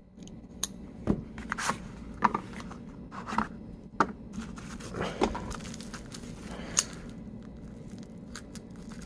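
Handling noise from unboxing: a cardboard knife box handled and opened, then plastic bubble wrap crinkling as a folding knife's blade is worked against it to cut it open. Scattered light clicks, scrapes and crinkles.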